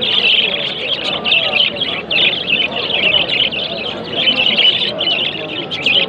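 Many caged songbirds chirping and singing at once in a dense, continuous chorus, with a faint murmur of voices beneath.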